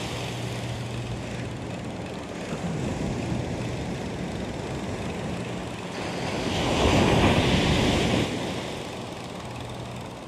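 Surf breaking and washing up a sandy beach, with one wave surging in to its loudest about seven seconds in, and wind on the microphone. A faint steady low hum runs under it at the start and again near the end.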